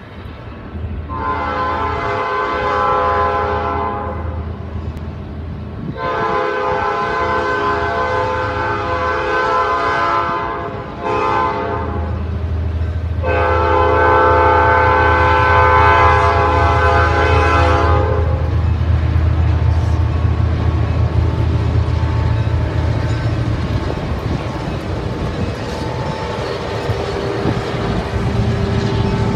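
Ellis & Eastern diesel locomotive's horn sounding the grade-crossing signal: long, long, short, long. The locomotive's engine rumbles underneath. After the last blast the engine and the rolling cars of the passing freight train go on.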